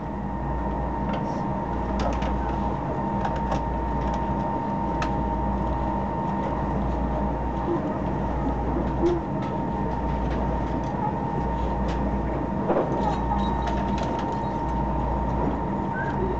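Odakyu Line limited express train running at speed, heard from inside the passenger car: a steady low rumble and running noise with a constant tone over it and scattered light clicks.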